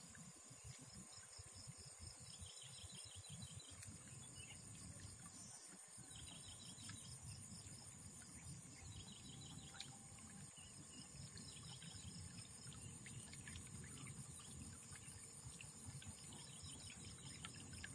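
Insects chirping: a steady high trill with groups of pulsed chirps coming every few seconds, over a faint low rumble.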